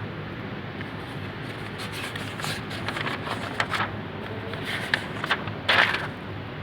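Scattered rustling and light clicks over a steady low background hum, with one louder rustle near the end.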